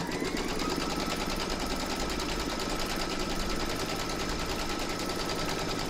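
Computerised embroidery machine stitching a placement outline: a fast, even needle clatter over the motor's hum. The motor's whine rises briefly at the start, then holds a steady pitch.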